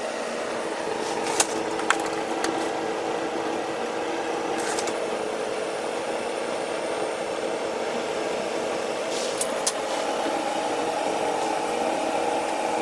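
Steady hum of commercial kitchen machinery, with a handful of short sharp clicks from handling on the prep counter.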